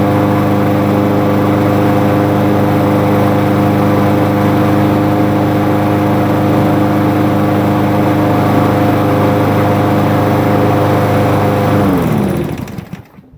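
Craftsman self-propelled lawn mower's newly swapped-in replacement engine running steadily at a constant speed, a sign that the swap worked. About twelve seconds in it is shut off, its pitch dropping as it winds down to a stop.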